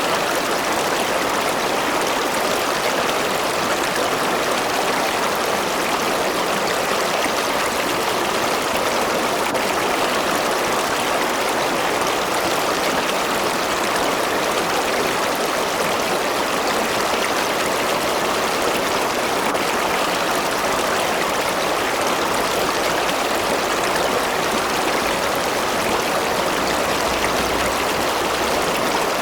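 A river or stream running over rocks: a steady, even rush of flowing water.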